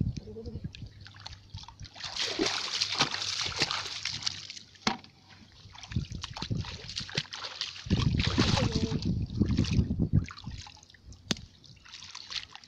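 Shallow muddy water sloshing and splashing as someone wades through it, coming in two heavier spells, about two seconds in and again around eight seconds in.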